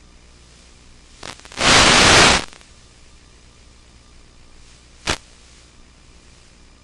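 Static hiss from an FPV video receiver's recorded audio channel, with a loud burst of static about a second and a half in and a short crackle about five seconds in.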